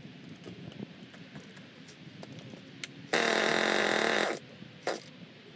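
Two-stroke chainsaw being pull-started: about three seconds in, the engine catches and runs for just over a second, then dies. A short burst of firing follows shortly after.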